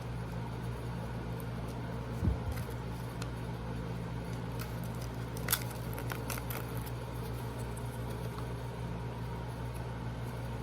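Steady hum of an electric fan, with a few faint clicks of small packaging being handled, a low thump about two seconds in and a sharper click a few seconds later.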